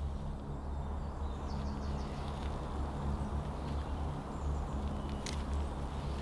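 A low steady drone with faint outdoor ambience, and a couple of brief faint high sounds about one and a half and five seconds in.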